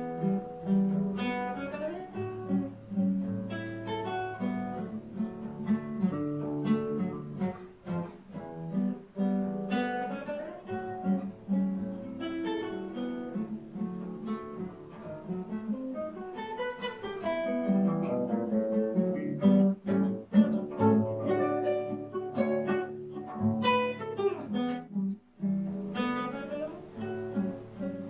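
Solo nylon-string classical guitar played fingerstyle: plucked melody notes over ringing bass notes, with a brief break about three seconds before the end.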